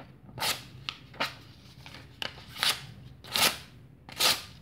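Ganzo F758 knife's 440C steel blade slicing a hand-held sheet of paper with its tip: about five quick cuts, each a short crisp swish, the last two loudest. The clean cuts show a very sharp out-of-the-box edge.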